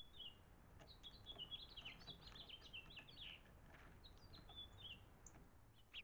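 Small songbirds chirping faintly: a quick run of high twittering notes through the first half, then a few more near the end, over a low background hiss.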